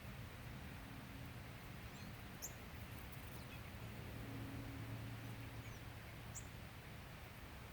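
Faint steady background hiss with a low hum that swells for a second or so in the middle, and two brief, very high chirps from a small bird, about two and a half and six and a half seconds in.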